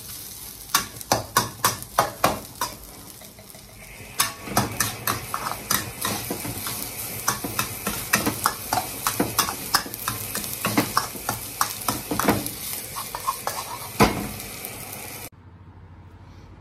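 A metal wok spatula scraping and knocking against a carbon-steel wok as fried rice is tossed, at first in a regular rhythm of about two to three strokes a second, with the rice sizzling. From about four seconds in a steady loud hiss joins under more irregular scrapes, and it all cuts off abruptly shortly before the end.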